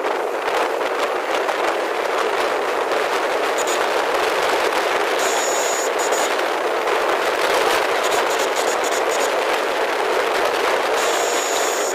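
Steady, loud rush of wind on the microphone of a moving two-wheeler, mixed with road and traffic noise and thick with rapid crackling from wind buffeting.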